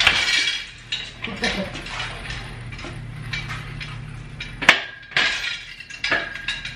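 Shop crane with the freshly pulled engine hanging from its chain being rolled across a concrete garage floor, the chain and hoist clinking and rattling, with one sharp metal clank a little under five seconds in.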